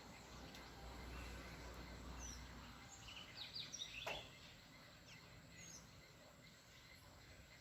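Faint outdoor ambience with a few short, high bird chirps, clustered about three to four seconds in, the loudest about four seconds in.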